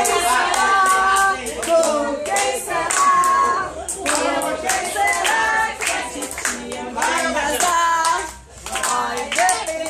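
A group of people singing a birthday song together while clapping along in a steady rhythm, with a brief drop in loudness about eight seconds in.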